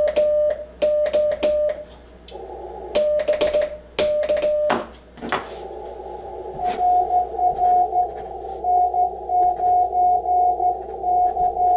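Morse code on an Icom IC-7300 transceiver: hand-sent CW from a straight key for the first five seconds, a steady tone keyed in dits and dahs with a sharp click on each element. The receiver then opens to a hiss of band noise, and the other station's reply comes in as a slightly higher-pitched CW tone of dits and dahs.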